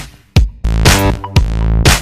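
Electronic background music with a drum-machine beat and sustained bass notes.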